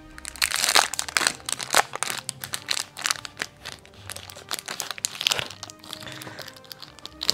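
A plastic chocolate-bar wrapper crinkling and crackling in irregular fits as it is worked at by hand, hard to get open, with louder bursts about a second in and again near five seconds. Background music plays underneath.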